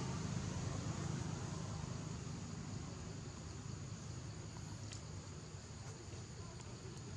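Steady outdoor background noise: a low rumble with a faint high hiss, and a couple of faint clicks about five and seven seconds in.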